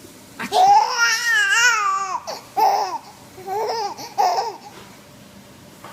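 A baby laughing: one long, high squeal of laughter with a wobbling pitch about half a second in, followed by a few shorter laughing and babbling sounds.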